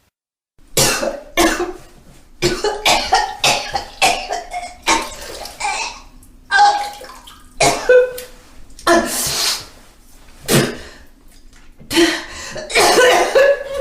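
A person retching and vomiting over and over, gagging heaves with liquid splashing, one burst after another after a brief silence at the start.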